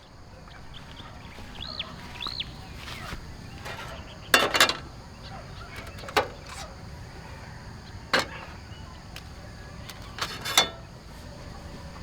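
Several sharp knocks, some in quick pairs, over steady outdoor background noise, with two short bird chirps about two seconds in.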